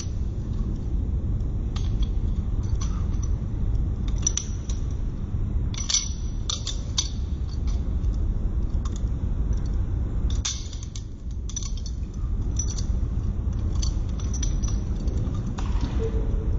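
Balisong (butterfly knife) being flipped: its handles and blade click and clink against each other at irregular moments, over a steady low rumble.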